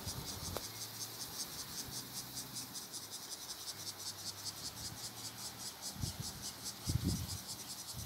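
Cicadas singing: a high-pitched buzz that pulses rapidly and evenly, with a couple of soft low bumps near the end.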